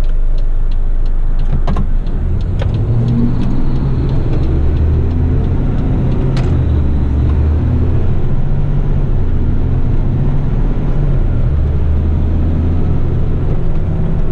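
Diesel engine of a heavy rigid truck heard from inside the cab, pulling away out of a bend and accelerating, its note climbing and dropping in steps. For the first few seconds the turn indicator ticks about three times a second, and there are a couple of sharp clicks.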